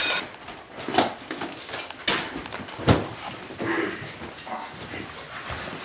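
A ringing alarm tone cuts off right at the start, followed by scattered knocks and thumps as people close up a laptop, gather their things and get up from a table. The three sharpest knocks come about one, two and three seconds in.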